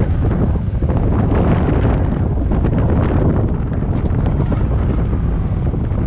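Heavy wind buffeting the microphone of a Suzuki M50 motorcycle at road speed, a loud steady low rumble, with the bike's running mixed in underneath.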